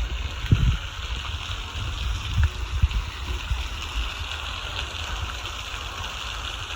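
Steady rushing of a small creek running over rocks, with a few low thumps about half a second, two and a half and three seconds in.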